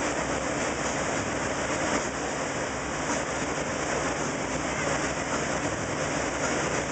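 Motorboat running at towing speed: a steady rush of churning wake water over the engine's low drone.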